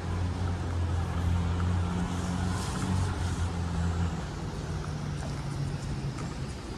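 A motor engine running steadily with a low drone over outdoor street noise. It becomes quieter about four seconds in.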